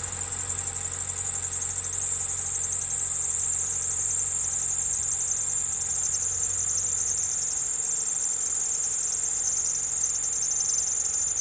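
2010 Kia Soul's power steering belt squeaking continuously over the running engine just after start-up: a loud, shrill, steady squeal that slowly sinks a little in pitch. The belt is loose, stretched or slipped out of adjustment, the cause the owner finds for the noise and for stiff power steering.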